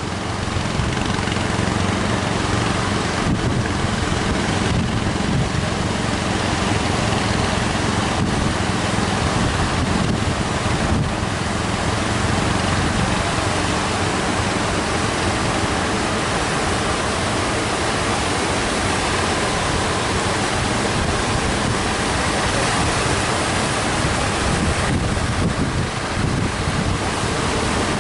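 Sea surf breaking in a steady wash of noise, with wind buffeting the microphone.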